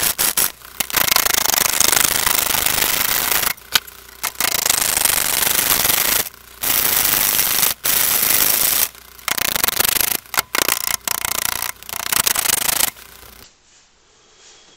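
Lathe tool rough-turning a large, irregular green-wood log: loud rasping cuts in long stretches, broken by short gaps as the tool comes off the wood, stopping about 13 seconds in.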